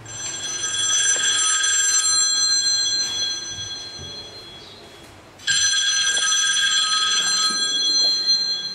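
Mobile phone ringtone ringing, a chord of steady high tones. It sounds twice: the first ring fades away over a few seconds, and the second starts suddenly about five and a half seconds in.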